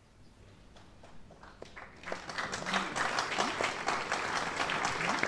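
Audience applause: a few scattered claps about a second in, swelling into dense, steady clapping about two seconds in.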